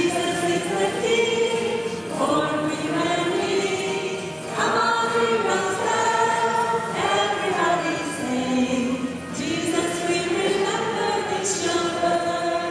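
Children's choir singing a Christmas song, in phrases of about two to three seconds with short breaks between them.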